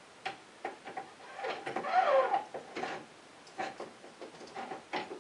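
Steel rear axle of a Polaris Scrambler 400 ATV being slid by hand through the greased axle bearing carrier: irregular light metal clicks and knocks. About two seconds in there is a louder scrape with a short wavering squeak.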